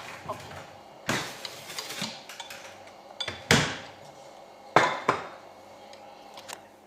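Utensils and dishes clattering: a handful of separate knocks and scrapes of metal or ceramic, the loudest about three and a half seconds in.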